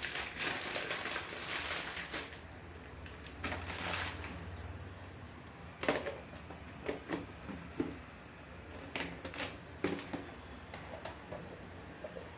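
A spoon stirring oats and milk in a metal cooking pot, knocking and clinking against the pot's sides in scattered sharp clicks, after a rustle at the start.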